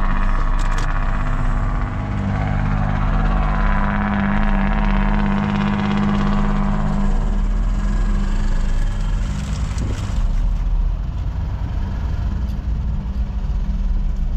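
Car engine hum and road noise heard from inside the cabin while driving, with steady low engine tones and a swell of higher road noise in the first half that fades away.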